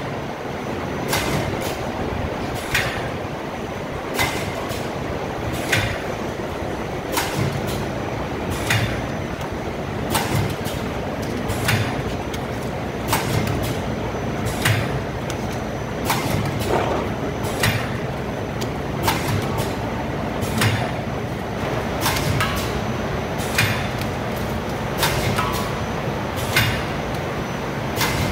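Vertical pouch packing machine running: a steady mechanical hum with a sharp clack that repeats about every one and a half seconds, in step with the machine's cycle.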